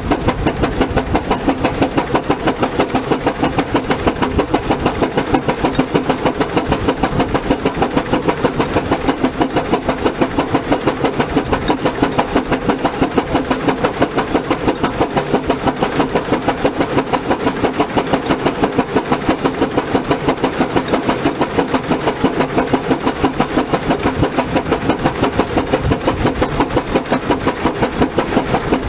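Fowler 14NHP single-cylinder steam ploughing engine working hard under load, its exhaust barking in a fast, even beat of about four a second as it winds in the cable against a resisting engine.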